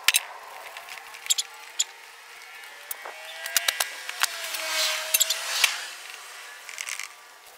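A cloth rag wiping and rubbing a plastic go-kart body panel, with scattered light clicks and taps as the panel and an aerosol can are handled. A louder swishing rub comes about four to five and a half seconds in.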